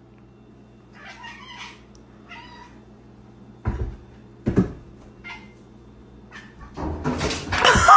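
A cat meowing a few short times over a steady low hum, then two thuds about a second apart as it jumps down from the top of a refrigerator onto the kitchen counter. Near the end a louder burst of noise.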